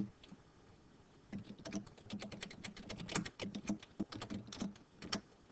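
Computer keyboard keys clicking in an irregular run of typing, with a brief pause about a second in before the run of keystrokes.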